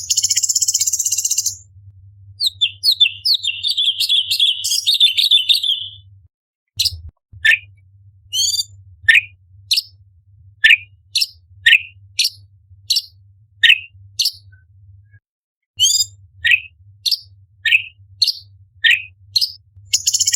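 Orange-bellied leafbird singing. A brief high buzzy trill is followed by a rapid chattering phrase, then a long run of sharp downslurred notes, each sweeping from high to low, about one to two a second.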